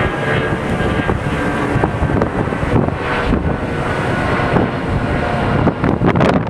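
Boeing 757-200 airliner's jet engines heard from the ground as it flies overhead: a steady rumble, with a whine that fades about a second in. Wind buffets the microphone near the end.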